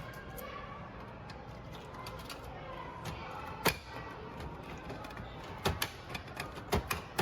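Sharp hard-plastic clicks from gacha capsule toys being handled: one loud click about three and a half seconds in, then a quick run of clicks near the end, over a faint background murmur.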